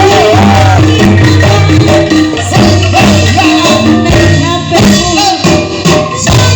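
Loud live campursari music with angklung: shaken bamboo rattles over a steady bass line and a wavering melody.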